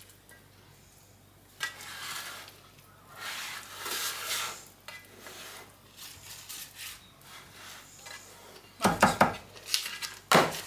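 Parchment paper rustling and a silicone spatula scraping in a metal baking tin as brownie batter is spread, with a few sharp clatters of the tin near the end.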